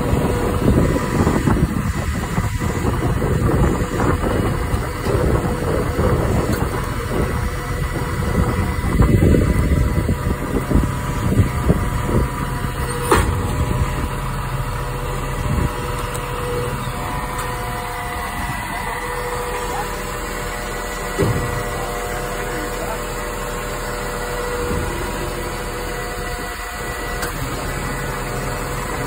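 Iveco Stralis garbage truck running while stopped at the kerb, its engine steady under a thin constant whine. The sound is louder and more uneven for the first ten seconds or so, then settles; there is a single sharp click about 13 seconds in.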